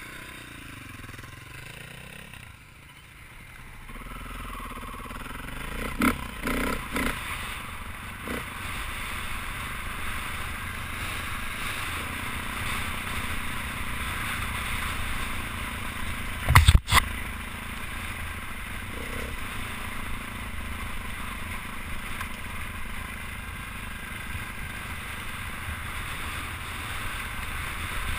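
Dirt bike engine running steadily while riding a rocky trail, under a steady hiss of noise. A few sharp knocks come around six to eight seconds in, and one loud thump comes about seventeen seconds in.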